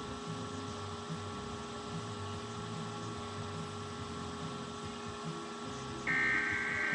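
Steady electrical hum from the broadcast, then about six seconds in a loud burst of the Emergency Alert System's digital header tones begins, lasting just under a second: the start of the nationwide EAS test.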